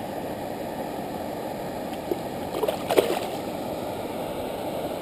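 Short splashing and slapping of water about halfway through as a released asp kicks free of a hand in the shallows, over a steady low rushing noise.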